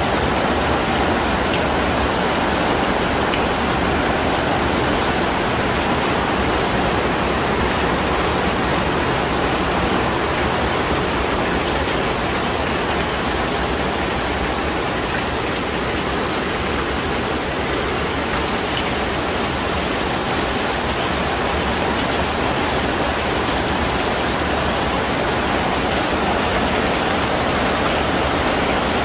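Heavy rain falling steadily onto wet, puddled pavement: a dense, even wash of rain noise that holds at one level throughout.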